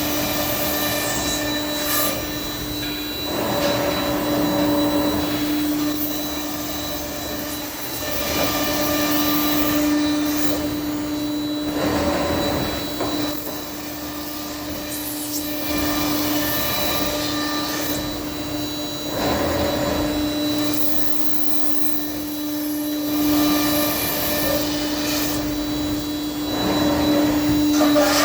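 Thermwood CS-45 CNC router running: a steady spindle whine over a rushing noise that swells and eases every few seconds.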